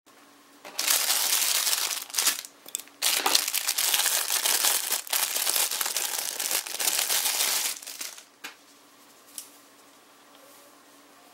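Thin clear plastic bag crinkling loudly as it is opened and handled, with a short pause near the start; the crinkling stops about eight seconds in.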